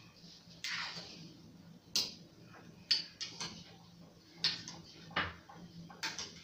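A metal ladle clinking and scraping against the side of a stainless steel soup pot while stirring, in irregular sharp knocks about once or twice a second.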